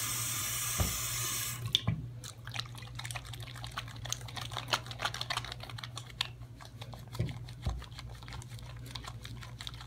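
Bathroom faucet running onto the hands, shut off about a second and a half in; then wet, soapy hands rubbing together to work up a lather, with many small irregular squishing clicks.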